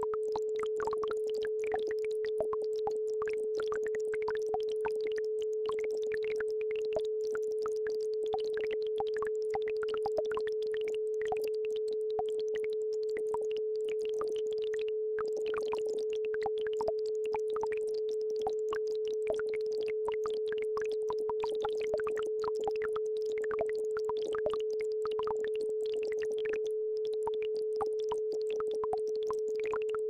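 A steady electronic tone a little below 500 Hz, held unbroken, an isochronic brainwave-entrainment tone, over a faint babbling brook.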